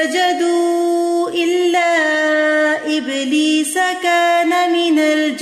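A woman reciting the Quran in Arabic in a slow, melodic tajweed style, holding long drawn-out notes with brief breaks between phrases.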